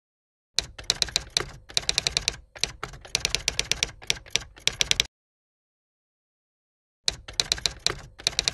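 Typewriter typing sound effect: a rapid, uneven clatter of keystrokes in two runs, broken by about two seconds of silence in the middle.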